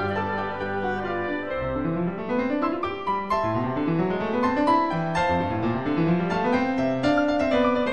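Classical solo piano music playing fast, flowing runs of notes that climb upward again and again.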